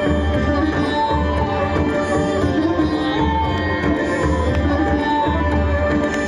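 Instrumental music in an Indian classical style, with held melodic tones over a low bass pulse about once a second.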